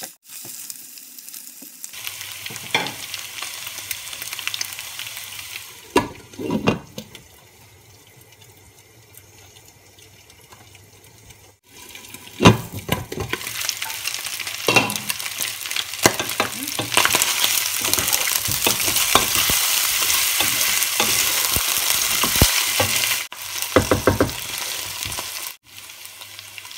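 Oxtail pieces sizzling in hot oil with onion and garlic as they are sautéed, stirred with a wooden spoon that knocks against the pot now and then. The sizzle is loudest in the second half.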